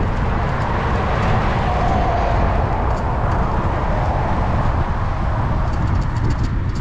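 Wind rushing and buffeting over the microphone while riding a touring bicycle along a road, with traffic going by; a passing vehicle's tone swells and fades about two to three seconds in.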